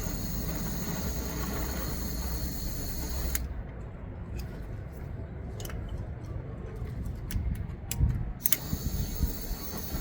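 Butane micro torch flame hissing steadily for about three and a half seconds, then again for the last second and a half, shrinking heat-shrink tubing over a crimped wire connector. Scattered light clicks of handling in between.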